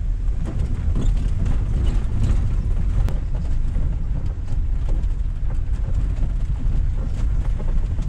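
A van driving over a rough, unmade road: a steady low engine and road rumble, with frequent small rattles and knocks as it bumps along.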